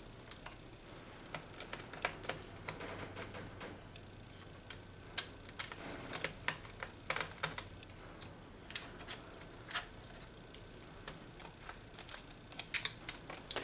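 Faint, irregular clicks and taps of a small screwdriver and fingers working on a laptop's plastic case and screws during disassembly.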